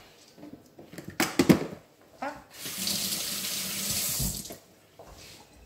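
A couple of sharp knocks about a second in. Then a kitchen tap runs for about two seconds, water splashing into the sink, and is turned off.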